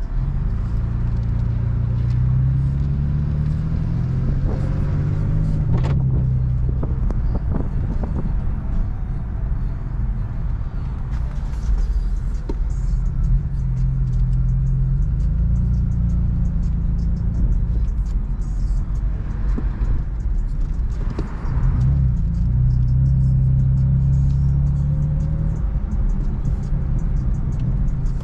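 BMW F80 M3's S55 twin-turbo straight-six, heard from inside the cabin through a VRSF single mid pipe and stock exhaust. It gives a low, steady engine note whose pitch rises and falls several times with acceleration and gear changes.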